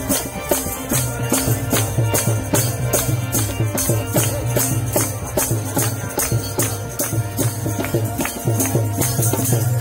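Devotional kirtan music: harmonium with a dholak drum, driven by a fast, even beat of sharp high percussion strikes.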